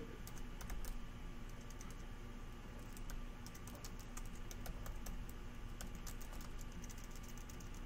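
Computer keyboard typing: a run of irregular keystroke clicks, several a second, over a faint steady hum.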